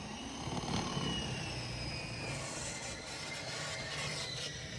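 An engine running steadily, with a faint whine that drifts slowly in pitch.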